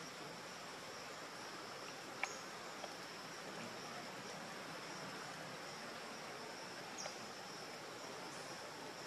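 Steady high-pitched insect drone over a background hiss, with a couple of short clicks about two and three seconds in.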